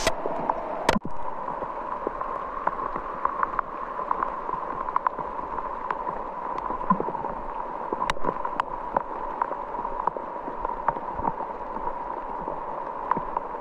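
Water gurgling and trickling steadily, with many small irregular pops and splashes.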